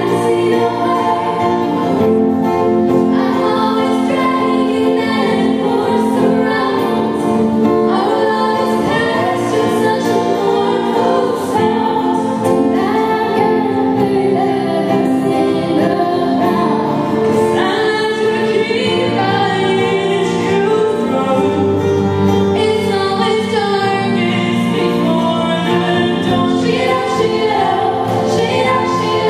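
Female vocal group singing together through microphones, with acoustic guitar accompaniment.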